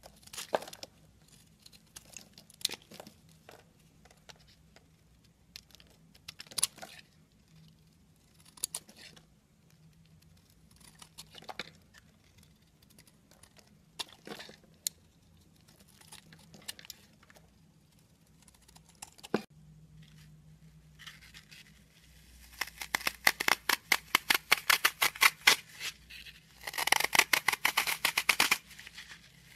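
Knife shaving curls off a bar of soap in short, separate scraping strokes a second or two apart. About 22 seconds in, this gives way to Oasis Maxlife floral foam being crushed with the fingers, a dense run of rapid, loud crunching crackles.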